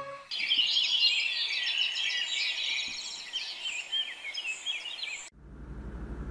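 A flock of small birds chirping and twittering together, a dense overlapping chorus of short calls. It cuts off abruptly about five seconds in, giving way to a low steady hum.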